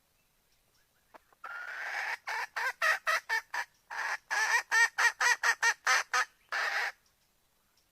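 Junglefowl hen calling to a rooster: a drawn-out note, then two quick runs of short clucking notes about five a second, ending on one longer note.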